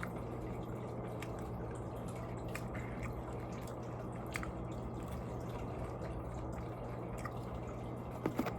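A few faint, wet mouth clicks from someone chewing food, scattered over a steady low room hum.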